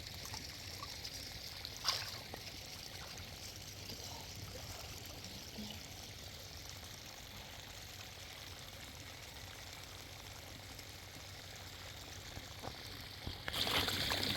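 Running water trickling and pouring steadily, with one sharp click about two seconds in. Shortly before the end the water suddenly gets louder and hissier.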